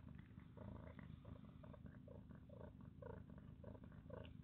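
Mother cat purring softly, just after giving birth and with her newborn kittens nursing at her belly. Small faint sounds repeat over the purr about four times a second.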